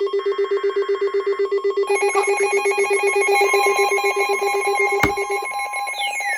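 Electronic alert tones from emergency-alert receivers sounding for an incoming warning: a rapidly pulsing low beep, joined about two seconds in by further steady beeping tones and a higher steady tone a little later. A sharp click comes about five seconds in, and falling siren sweeps begin near the end.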